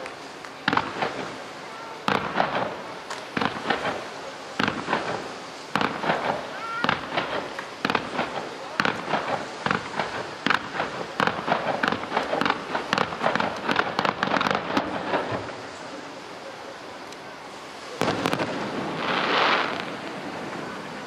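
Fireworks display: aerial shells and fountains going off in a rapid barrage of bangs and crackling that stops about three quarters of the way through. A brief swell of noise follows near the end.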